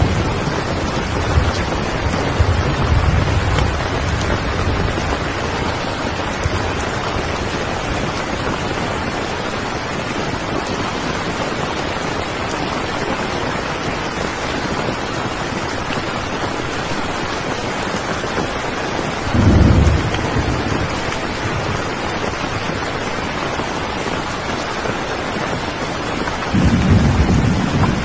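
Steady heavy rain, with low rumbles of thunder swelling briefly in the first few seconds, about two-thirds of the way through, and again near the end.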